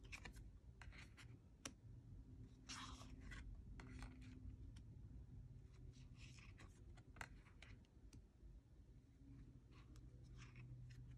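Faint swishes and light clicks of smooth, thick cardstock oracle cards being slid off a pile and laid onto another one at a time, with a low steady room hum underneath.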